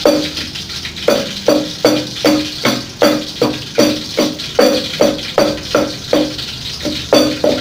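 A wooden pestle pounding in a deep mortar: steady knocks about two and a half times a second, each with a short hollow ring.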